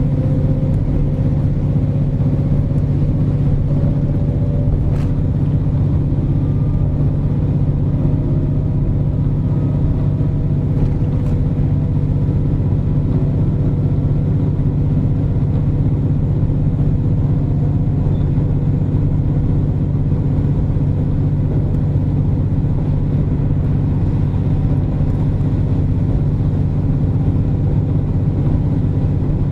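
Running sound of a KiHa 47 diesel railcar heard inside the car: a steady diesel engine drone with a faint whine that rises in pitch over the first several seconds, and an occasional sharp click.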